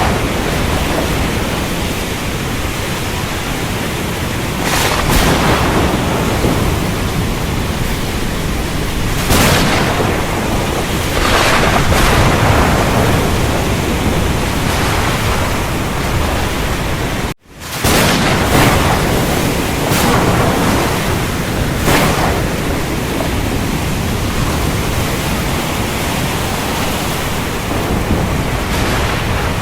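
Steady heavy rain with a low thunder rumble, swelling several times into brief louder cracks. About two-thirds of the way through, the sound cuts out for a split second and then resumes.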